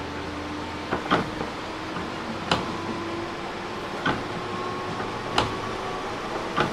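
Running sound of a JR 205 series 600 subseries electric train heard on board: a steady rumble of the train in motion, with sharp clicks of the wheels over rail joints about every second and a half, and a low whine that slowly rises in pitch.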